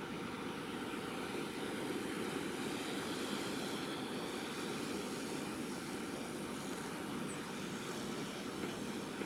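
Jet engines of a Boeing 787-9 airliner heard from a distance as it rolls out on the runway after landing: a steady rumble with a faint high whine above it.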